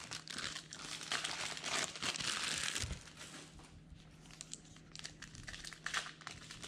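Plastic wrapping on hobby boxes of baseball cards crinkling and tearing as the boxes are unwrapped by hand, heaviest over the first three seconds, then scattered rustles and ticks, with more crinkling near the end.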